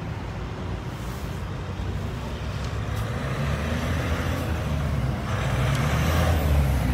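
A motor vehicle's engine running close by, a low hum that grows steadily louder through the second half, over a haze of street noise.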